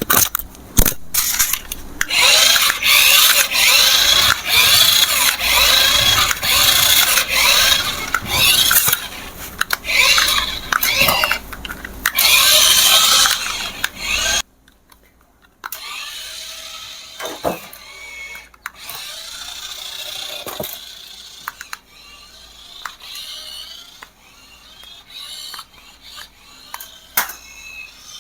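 Small electric motor and gears of a remote-control toy vehicle whirring in stop-start bursts, rising and falling in pitch. About halfway through it cuts off suddenly and continues much more quietly.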